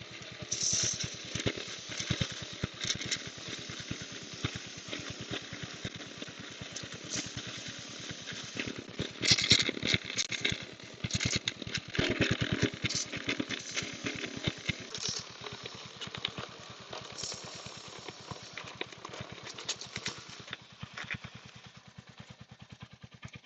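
Royal Enfield Hunter 350's single-cylinder engine idling in first gear, turning the rear wheel, with repeated hissing bursts of aerosol chain lube sprayed onto the moving chain; the spraying stops a few seconds before the end.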